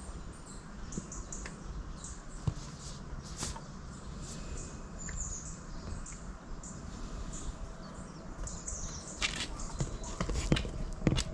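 Small birds chirping and twittering over a steady low rumble, with a run of footsteps starting near the end.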